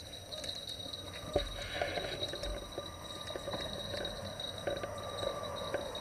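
Quiet night riverbank ambience: a steady high-pitched chirring of crickets, with scattered faint clicks and a soft knock about a second and a half in.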